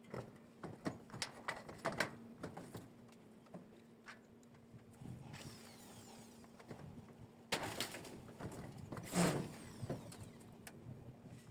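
Hand work with tools and materials: a quick run of light clicks and knocks, then two stretches of rough rasping noise, the second louder, with a sharp burst about nine seconds in.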